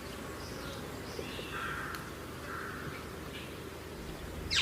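Birds calling outdoors: a few faint short calls in the middle, then a sharp call sweeping downward in pitch at the very end, over a low steady background hum.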